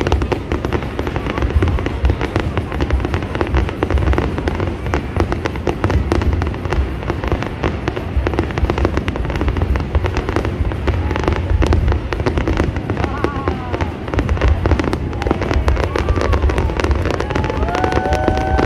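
Fireworks going off in a dense, continuous barrage of booms and crackles, many bursts a second. A few short, higher-pitched tones rise and fall over it in the last few seconds.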